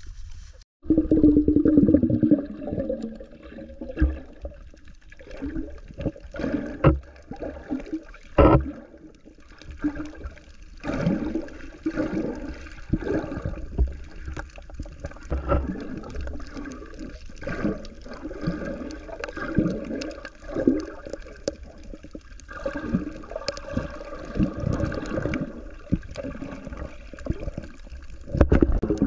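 Underwater sound picked up by a camera below the surface: muffled water movement with irregular bubbling and gurgling swells every second or two.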